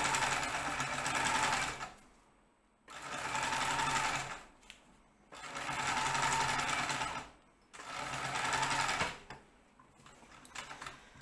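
Domestic sewing machine stitching in four short stop-start runs, each one speeding up and slowing again as a curved seam is eased together by hand. A few small clicks come near the end.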